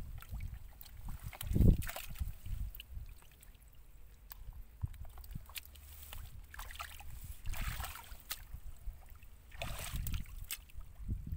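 Hands digging and squelching in wet mud, with short splashes of muddy water as a catfish is grabbed and pulled out. A loud thump comes about two seconds in, over a low rumble.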